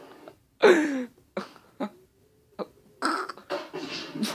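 Audio from a fail-compilation clip playing on a TV, picked up in the room: a loud vocal-like sound falling in pitch about half a second in, then a few short clicks and, from about three seconds, a noisy hiss.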